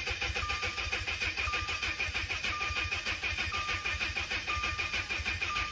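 Freshly rebuilt Audi 2.0T turbocharged four-cylinder engine turning over with an even, rhythmic pulse on its first start since the rebuild. A warning chime beeps about once a second over it.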